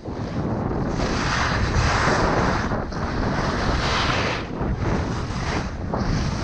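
Wind buffeting an action-camera microphone at skiing speed, a steady low rumble, with skis hissing and scraping over tracked, wind-packed snow. The hiss swells about a second in and again around four seconds.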